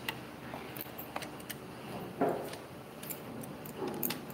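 Metal hex key and bolts clicking and clinking as bolts are turned into a wooden furniture frame, with scattered sharp ticks and a louder clunk about two seconds in.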